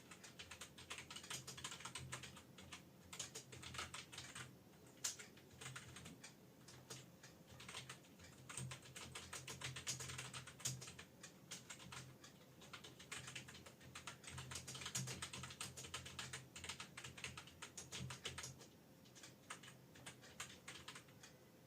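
Fast, continuous typing on an external computer keyboard: a dense stream of key clicks with a few short pauses.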